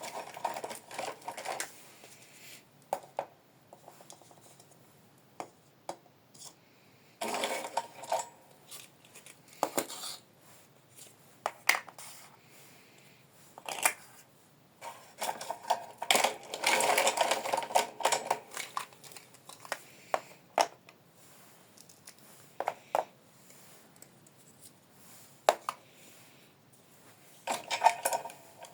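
Small plastic toy kitchen pieces being handled: scattered sharp clicks and clacks as they are picked up and set down, with a few busier stretches of handling noise, the longest about halfway through.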